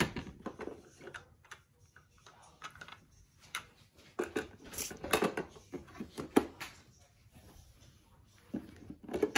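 Light clicks and clatters of hard plastic toy pieces being handled: plastic play food and the door of a toy kitchen's oven, in short irregular knocks.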